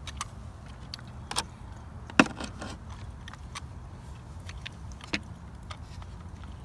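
Scattered light clicks and taps from handling a plastic jug and its alligator-clip leads, the loudest about two seconds in, over a low steady background hum.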